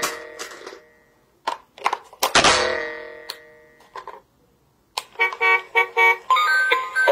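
AA batteries clicking and clattering into a plastic toy's battery compartment, two of the hits ringing on as they die away. About five seconds in, the battery-powered light-up toy starts playing its electronic tune.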